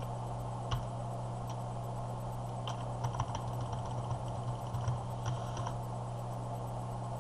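Scattered clicks of computer keys, a few isolated and some in quick little runs, over a steady low electrical hum.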